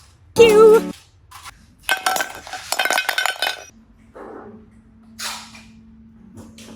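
A rapid run of light clinks and clicks lasting about two seconds, with a few short ringing tones, starting about two seconds in. Before it comes a short, high cartoon-style voice saying "You!".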